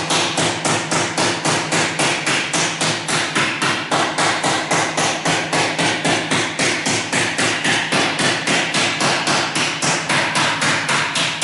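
A hammer striking in a quick, steady rhythm, about four blows a second, without a break.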